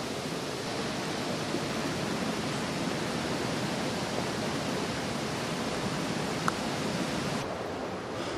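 Steady rushing of water in a wet forest, an even hiss with no break, with a tiny click about six and a half seconds in.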